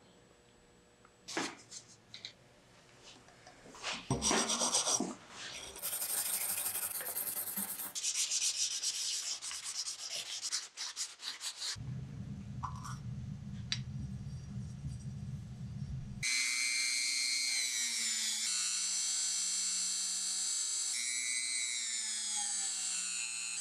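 Rubbing and scrubbing on metal parts, with a few clicks, in short rough stretches. About two-thirds of the way in, a handheld rotary tool starts and whines loudly as its small bit works on a metal telephone part, its pitch dipping and rising under load.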